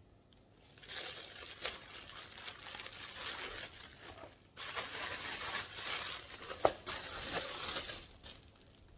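Plastic bread bag crinkling as it is handled and slices of bread are pulled out, in two long stretches with a short break about halfway, and one sharp click in the second stretch.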